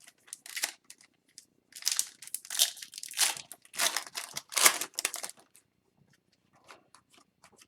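Foil trading-card pack wrapper crinkling and tearing as a pack of hockey cards is handled and opened, in a run of irregular crackles about two seconds in, then a few faint rustles.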